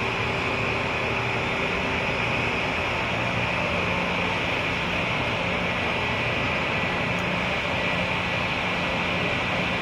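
Steady mechanical drone of dockside and shipboard machinery, with a low hum and a higher whine held level and no distinct knocks or clangs, while a container gantry crane's spreader is lowered into a ship's cargo hold.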